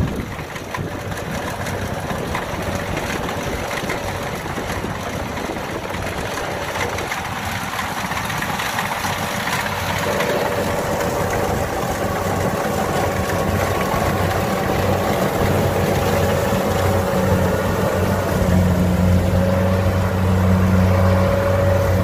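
Kubota DC70 combine harvester's diesel engine and machinery running steadily as it cuts lodged rice. The sound grows louder, and a steady low drone and a higher pitched hum come up over the last several seconds.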